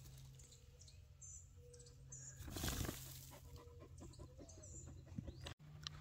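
Soft scuffing of a coyote and a dog pawing and nosing at a groundhog burrow in loose dirt, with one louder rustling scrape about two and a half seconds in. Faint bird chirps in the background.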